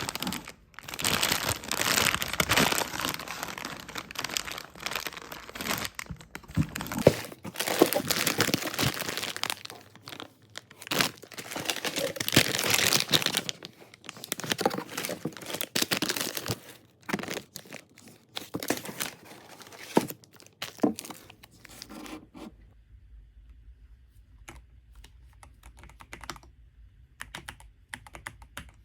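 Dense crinkling and rustling from hands handling something, thinning out after about twenty seconds to scattered light clicks.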